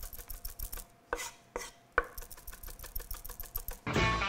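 Chef's knife chopping chipotle peppers on a wooden cutting board: a quick run of knife taps against the board. Music comes in near the end.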